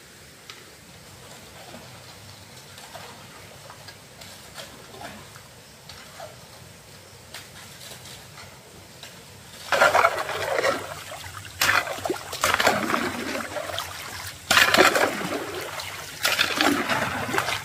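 Water splashing: faint water noise with small clicks at first, then four loud splashes about ten seconds in.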